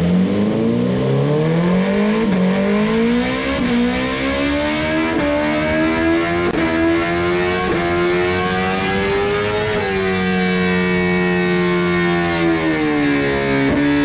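BMW S1000RR inline-four engine revving hard on a chassis dyno through an aftermarket Hindle exhaust during break-in. The revs climb in steps with brief dips, drop at about ten seconds, then hold a steadier note that eases down near the end.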